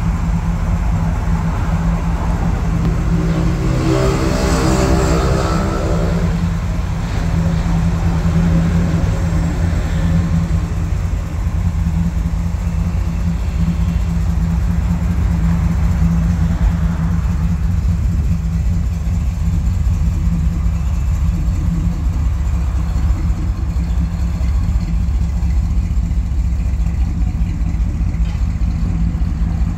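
The 1951 Chevrolet 3100 pickup's engine idling steadily. A brief louder sweep comes about four seconds in.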